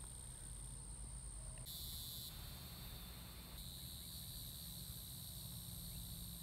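Faint, steady chorus of insects trilling high-pitched over a low rumble, the chorus shifting abruptly twice.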